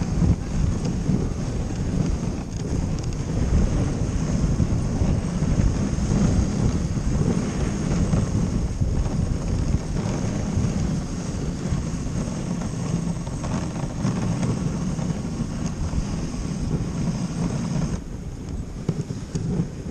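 Wind buffeting the microphone of a camera on a moving dog sled, a steady low rumble mixed with the sled gliding over snow. It eases slightly near the end.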